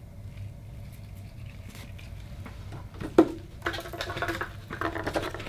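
Gloved fingers stirring and smoothing fine white granules in a small metal bowl: a soft gritty rustle. A sharp knock comes about three seconds in, followed by a few short pitched squeaks near the end.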